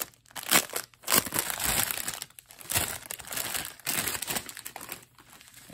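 Plastic wrapping crinkling as a bundle of bagged diamond-painting drill packets is handled, in irregular bursts that die down near the end.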